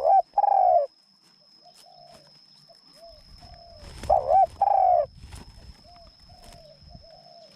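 Decoy dove cooing: two loud short coos at the start and two more about four seconds in, with softer coos between. A steady thin high-pitched tone runs underneath.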